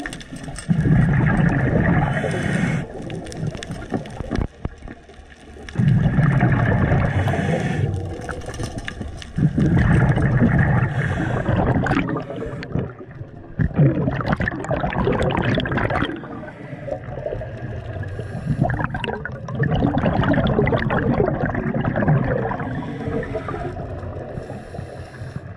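Underwater gurgling of a scuba diver's exhaled bubbles, in bursts of about two seconds that recur roughly every four seconds with quieter pauses between breaths.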